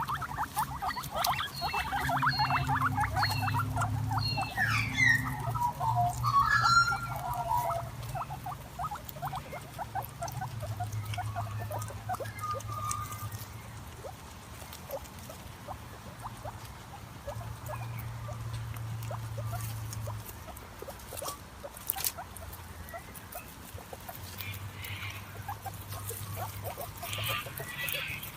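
Guinea pig sounds: a rapid run of short clicks and brief squeaks, loudest and busiest in the first several seconds, then sparser and quieter.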